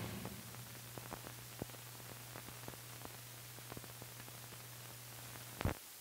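Faint blank film soundtrack: steady hiss and a low hum, with scattered faint crackles and clicks. A louder pop comes near the end.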